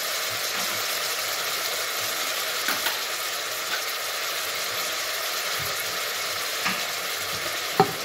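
Ham, onions and freshly added tomato slices sizzling steadily in hot oil in a stainless steel pot, with a few faint clicks.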